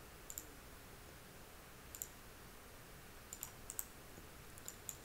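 Computer mouse button clicks, short and sharp, coming at irregular intervals and bunching together near the end, as vertices of a polygon are placed in a GIS program. Faint, over a low steady hiss.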